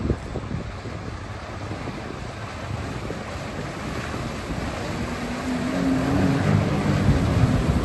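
Jet ski engine running as the craft approaches, its note growing louder and standing out from about five seconds in, with wind noise on the microphone.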